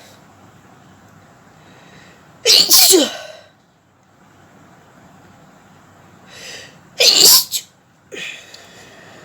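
A woman sneezing loudly twice, about 2.5 and 7 seconds in, each sneeze with an in-breath just before it. A shorter, weaker burst follows just after 8 seconds.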